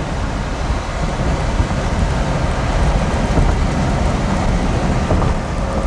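Steady rumbling wind and rain noise, heaviest at the low end, with no distinct strikes or rhythm.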